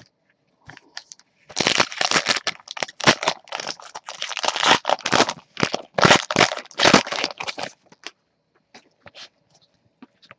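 Wrapper of a Panini Prizm Fast Break basketball card pack being torn open and crumpled by hand: a dense, irregular crackling and crinkling that starts about a second and a half in and stops near eight seconds, followed by a few faint ticks.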